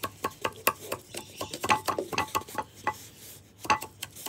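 A utensil knocking and tapping against a container as flower petals and other potion ingredients are mashed: quick knocks, about five a second at first, then sparser and uneven.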